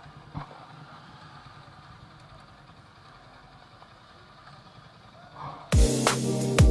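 Motorcycles idling faintly at a standstill, with a soft knock early on. Near the end, loud electronic music with a heavy thumping beat cuts in suddenly.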